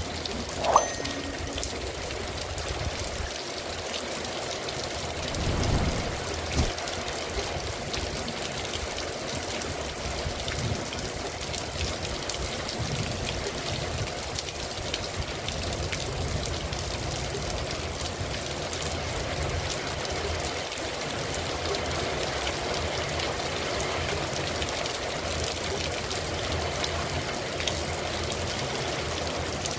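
Steady rain falling and running off, an even hiss throughout. A brief sharp knock comes about a second in, and a short low rumble near six seconds in.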